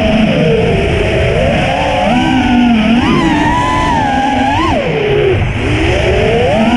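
FPV freestyle quadcopter's brushless motors and propellers whining, the pitch rising and falling again and again as the throttle is punched and eased.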